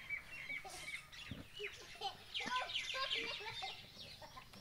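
Chickens clucking faintly, with scattered short bird chirps and a quick run of calls about halfway through.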